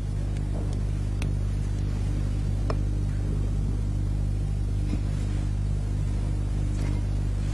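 Steady low electrical hum with a few faint ticks.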